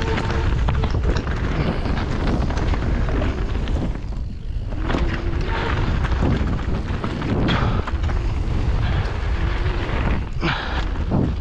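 Mountain bike descending a rough, muddy trail: heavy wind rumble on the camera microphone with scattered knocks and rattles from the bike over the ground.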